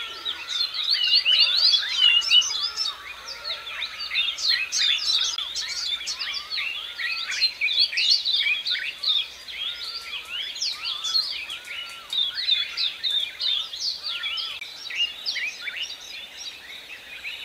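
A chorus of many small birds chirping and twittering at once, a busy, continuous overlapping stream of quick high calls.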